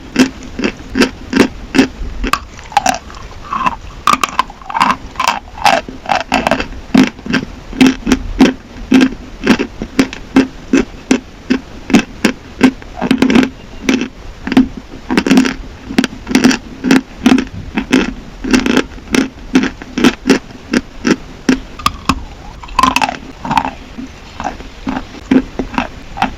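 Close-up crunching of dry chalk being bitten and chewed, with sharp crunches coming about twice a second.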